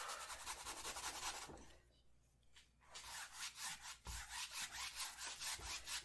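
Paintbrush scrubbing paint onto a stretched canvas in rapid back-and-forth strokes, several a second. The brushing comes in runs, with a pause about two seconds in and a brief break around four seconds.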